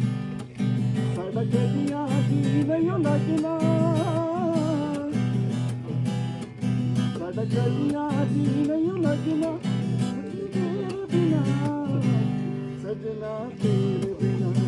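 Upbeat music of strummed acoustic guitar in a steady rhythm, with a wavering melody line above it.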